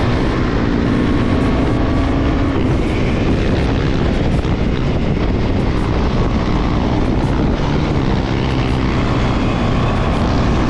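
KTM Duke 390's single-cylinder engine running hard at highway speed as the bike picks up speed, with a steady rush of wind noise.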